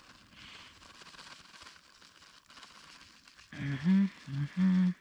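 Faint rustling and handling noise, then a man's voice sounding for about the last second and a half without clear words.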